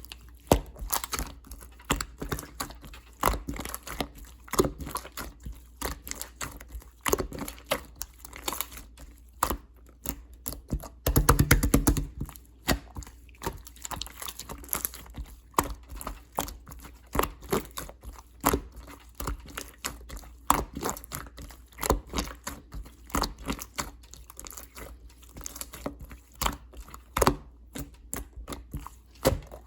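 Clear slime being squished, poked and stretched by hand, giving a run of small sticky clicks and pops, with a denser, louder burst of crackling about eleven seconds in.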